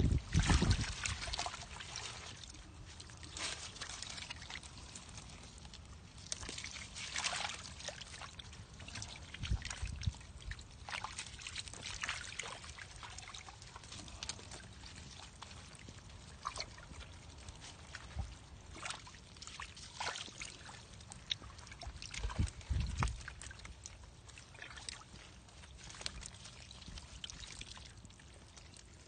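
Fish wriggling in shallow muddy water, giving scattered short splashes and trickling, with a few low thumps.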